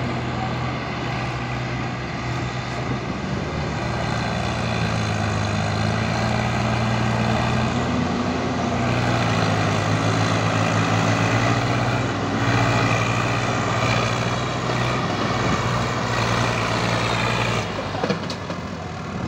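Swaraj 744 FE tractor's three-cylinder diesel engine working under load, pulling a heavily loaded trolley. The engine note is steady, grows louder and a little higher about a third of the way in, then drops off shortly before the end.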